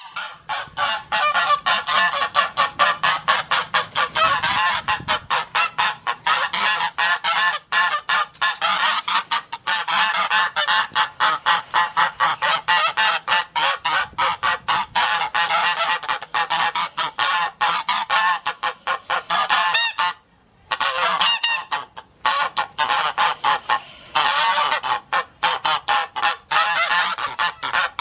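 Rapid, repeated animal calls, several a second, from more than one animal, running almost without a break apart from two short pauses about two-thirds of the way through.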